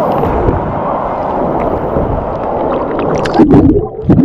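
Water rushing and churning as a big surf-pool wave breaks around a swimmer, with sharp splashes in the last second.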